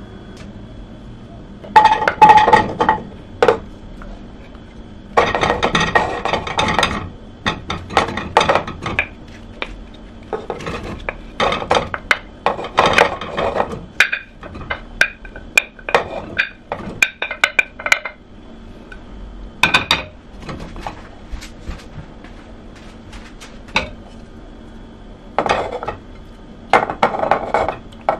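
Wooden spoon scraping chopped vegetables and pieces of stockfish off a ceramic plate into a stainless steel pot: irregular bursts of scraping and clattering as the pieces drop into the pot, with short pauses between.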